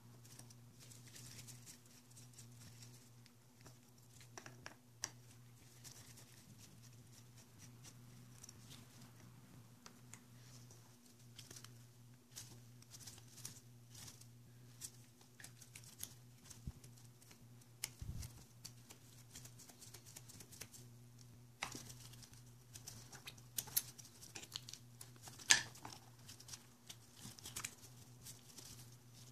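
Faint clicks, taps and scrapes of a screwdriver and small metal parts as the reservoir cover screws of a motorcycle clutch master cylinder are undone and the cover is worked loose, with a low steady hum underneath.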